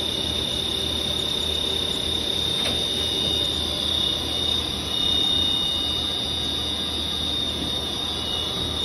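A CNC machine running: a steady high-pitched whine over a low hum and an even mechanical hiss.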